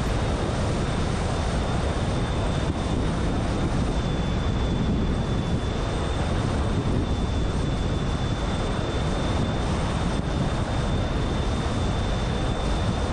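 Steady road and wind noise from a car cruising on a paved highway, with a faint thin high whine over it.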